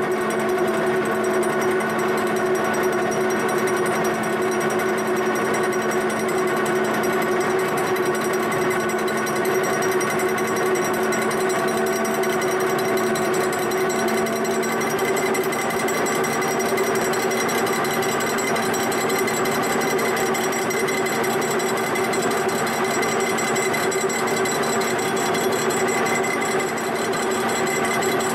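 Milling machine face-milling the mounting flange of a warped cast-iron John Deere 8000-series exhaust manifold flat. The spinning cutter runs in the cut with a steady machine hum and cutting noise that holds even throughout.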